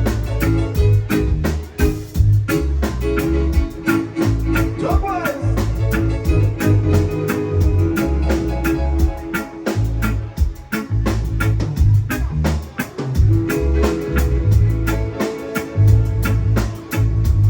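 Live reggae band playing an instrumental passage: a heavy bass line under steady drums, with guitar and keyboard.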